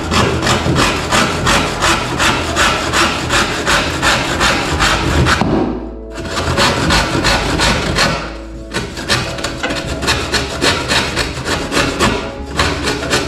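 Handsaw cutting through primed MDF skirting board along a scribed line, in quick rhythmic back-and-forth strokes of about four or five a second. It pauses briefly twice, about six and eight and a half seconds in.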